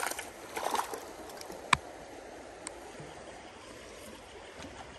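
Creek water running and rippling close by, a steady rushing wash, with one sharp click a little under two seconds in.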